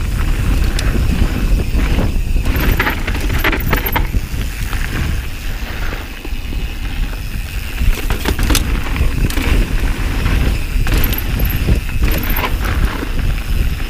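Enduro mountain bike ridden fast down a rough trail, heard on an action camera: a loud, steady low rumble of wind and tyres on the ground, with the chain and frame clattering over bumps several times.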